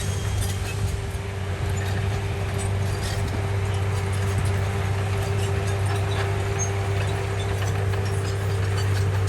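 Komatsu bulldozer's diesel engine running steadily with a low drone, with scattered light clicks and clanks over it.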